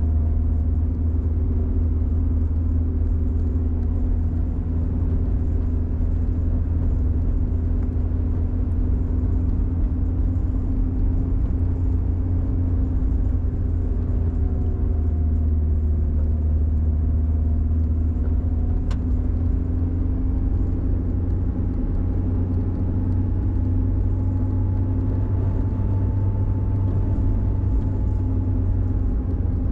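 Car driving, heard from inside the cabin: a steady low engine and road rumble, with the engine note drifting slowly up and down with speed. A single small click about nineteen seconds in.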